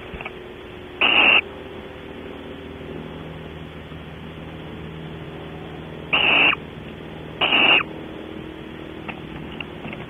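Barn owl giving three short, harsh calls: one about a second in, then two more close together later on. A steady low hum runs underneath.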